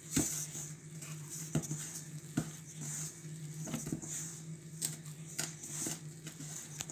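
A hand kneading soft, buttery dough in a stainless steel bowl: soft squishing of the dough, with a handful of irregular sharp knocks against the metal bowl, over a steady low hum.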